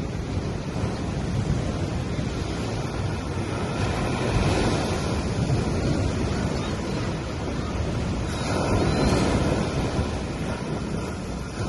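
Waves breaking on a beach: a continuous wash of surf that swells twice, about four and a half and about nine seconds in.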